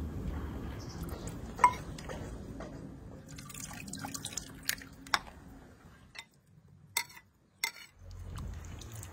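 Broth dripping and splashing as meat and broth are ladled from a pot into a bowl, with about five sharp clinks of the metal ladle against the pot and ceramic bowl, the loudest about one and a half seconds in. A low rumble runs underneath and drops away about six seconds in.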